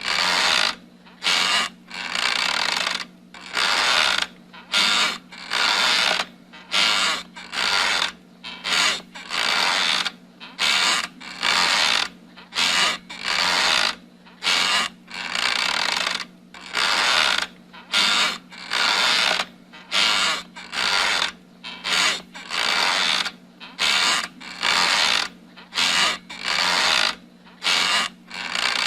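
Wooden rocking chair rocking back and forth, its joints creaking and squeaking about once a second, over a faint steady hum.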